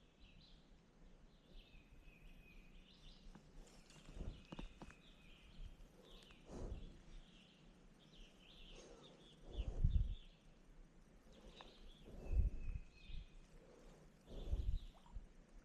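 Small birds chirping and calling on and off, with a handful of dull low thumps, the loudest about ten seconds in.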